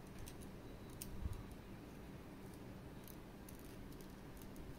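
Faint, scattered small clicks and light rustles from hands handling the packaging and plastic and metal parts of a boxed collectible figure, over a low room hum.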